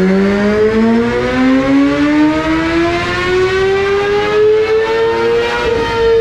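Suzuki GSX-R1000R's inline-four engine pulling at full throttle on a chassis dyno, its pitch rising steadily through the revs and levelling off near the top just before the end.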